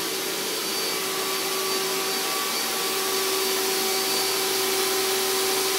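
Steady whir of a running electric machine with a constant pitched hum, growing slightly louder over the stretch.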